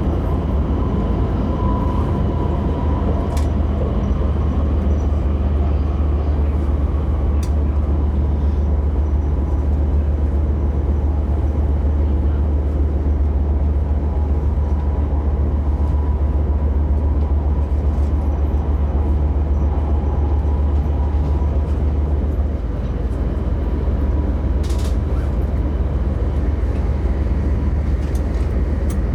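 Tohoku Shinkansen running, heard from inside the passenger car: a loud, steady low rumble with a faint steady whine and a few light clicks.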